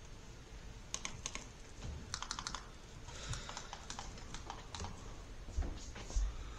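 Irregular light clicking, some of it in quick runs like typing on keys, with a few dull thumps near the end.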